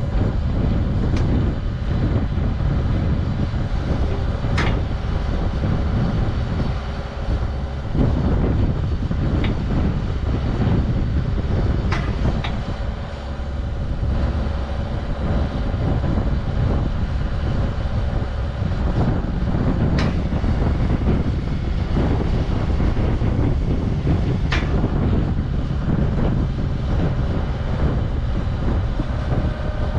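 Engine of the machine carrying a truss boom, running steadily while it holds a heavy load of extra-heavy pipe, with a few sharp metallic clicks scattered through.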